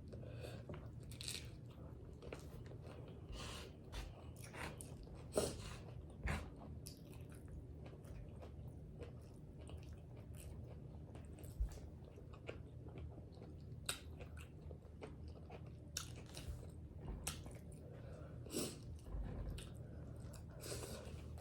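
A person eating tacos by hand close to the microphone: bites and chewing, heard as scattered short crunching and clicking sounds, with a louder bite every second or two.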